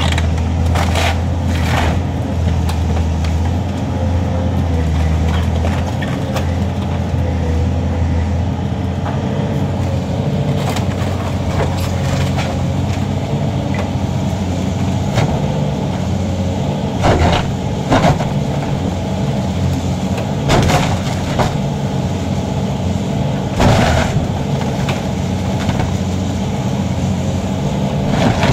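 A heavy demolition machine's engine running steadily, with several sudden cracks and crashes of a house's structure breaking apart, most of them in the second half.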